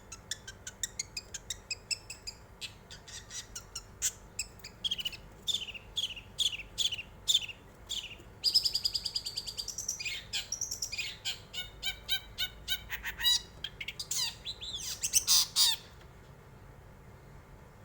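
Long-tailed shrike (cendet) singing a fast, varied song: rapid high chirps, a string of falling notes, buzzy trills and loud sweeping calls. It stops abruptly about two seconds before the end.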